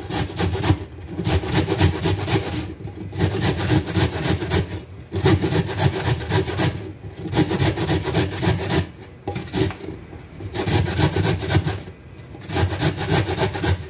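Carrot being grated on the coarse side of a metal box grater: quick, even rasping strokes in runs of about two seconds, broken by short pauses.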